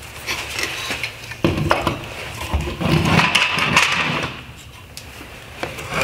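Hard plastic parts of a BMW X3 LED headlight being handled and set down on a wooden workbench: irregular knocks, clicks and rattling starting about a second and a half in, easing off near the end.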